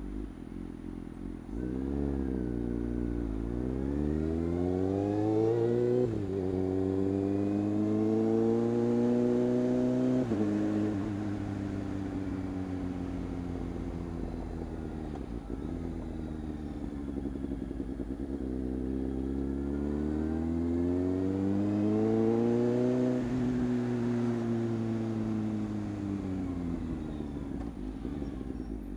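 Motorcycle engine, heard from inside the rider's helmet. It idles at first, then pulls away with its pitch rising through two gear changes about six and ten seconds in. It eases off, rises again for a few seconds, and falls away as the bike slows.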